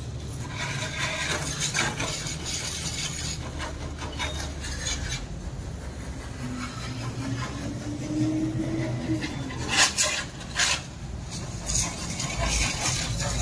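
Engine oil being poured from a can into the oil filler: rubbing and scraping of the can on the filler neck, with two sharp knocks about ten seconds in, over a steady low hum.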